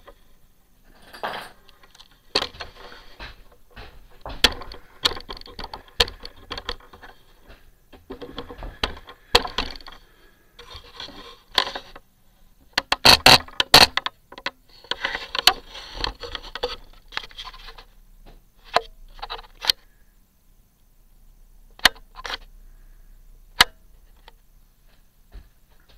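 Handling noise as a camera is moved and set on a new spot: irregular knocks, clicks and rubbing. The loudest is a cluster of sharp knocks about 13 seconds in, followed by a few isolated clicks near the end.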